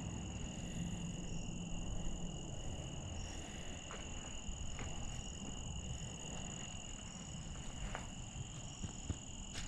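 Insects droning steadily outdoors in two unbroken high-pitched tones, with a few faint clicks now and then.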